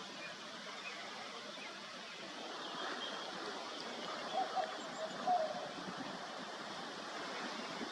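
Steady rushing noise like running water, with a few faint short calls a little past the middle.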